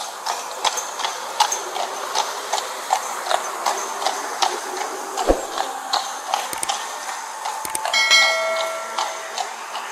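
Horse's hooves clip-clopping on a wet brick street, about two to three steps a second, over a steady hiss. Just before the end a click is followed by a ringing chime.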